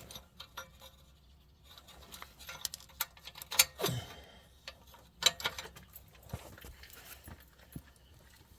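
Irregular light metallic clicks and clinks from hand tools and an exhaust pipe clamp being worked on, with a few sharper clicks about three to five seconds in.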